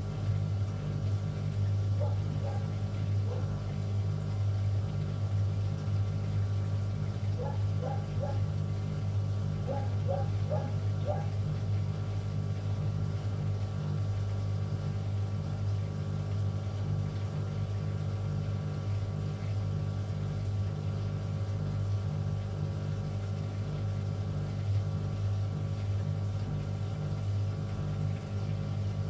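Beko bPRO500 washing machine running its calibration cycle: a steady motor hum as the empty drum turns, with a few faint short chirps about two, eight and ten seconds in.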